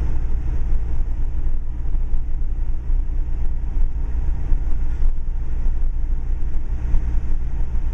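Steady low rumble of a Subaru Outback driving along a mountain road, engine and tyre noise with no single event standing out.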